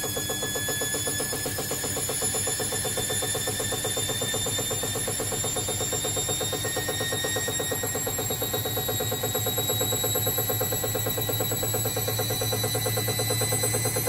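Baumatic washer dryer running: its motor whines, the pitch rising slowly, over a fast, even pulsing and a low hum that grows louder near the end.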